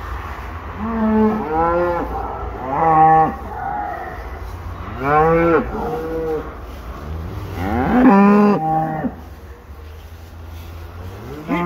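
Beef cows mooing repeatedly, several animals calling in turn every second or two; some calls rise and fall in pitch. The cows are shut away from their calves, which have just been dehorned.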